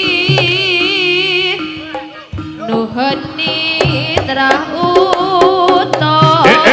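Jaranan gamelan music: a melody with wide vibrato over steady gong-chime notes and low hand-drum strokes, dipping briefly about two seconds in.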